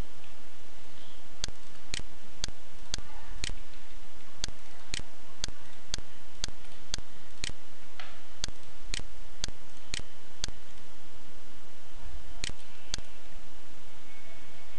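Computer mouse clicking, sharp single clicks mostly about two a second with a few short pauses, over a steady hiss.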